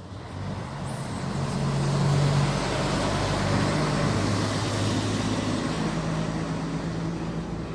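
A motor vehicle's engine running, its low hum and noise growing louder over the first two seconds and then holding steady.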